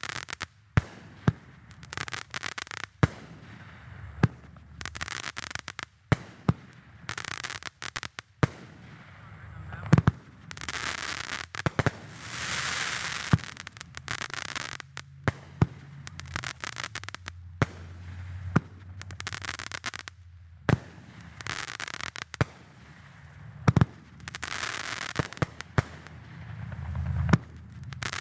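A 21-shot consumer fireworks cake firing its shots one after another, with sharp bangs about once a second. Between the bangs come longer hissing, crackling stretches from the bursts' crackling and glitter effects.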